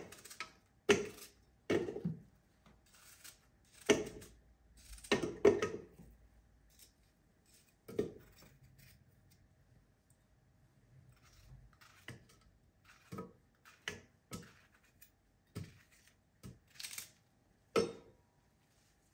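Food-prep knocks and taps: apple quarters dropped one by one into a plastic blender jar, then lighter taps of a knife cutting on a wooden board. The loudest knocks come in the first few seconds, and the later taps are fainter and more spread out.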